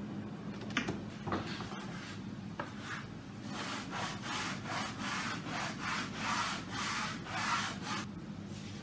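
A few sharp clicks and knocks as a bar clamp is released and taken off, then about a dozen quick back-and-forth strokes, two or three a second, of hand-sanding along a thin wooden strip on a guitar back plate. The strokes stop shortly before the end.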